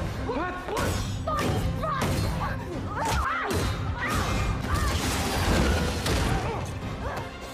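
Film fight-scene soundtrack: a steady music score under a rapid run of sharp hits, thuds and crashes, with short grunts of effort between the blows.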